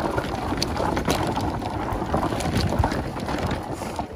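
Segway X260 electric dirt bike riding fast over a rocky dirt trail: wind buffeting the microphone and knobby tyres rumbling over dirt and stones, with scattered clicks and knocks.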